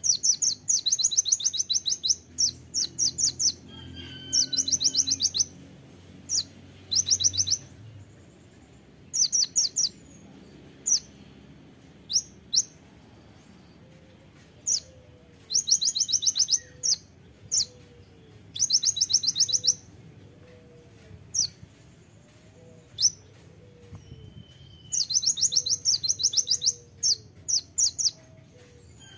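Male kolibri ninja sunbird singing its rapid-fire 'tembakan' song: high, sharp bursts of fast-repeated notes, each burst up to about a second long, in clusters with single sharp chirps between.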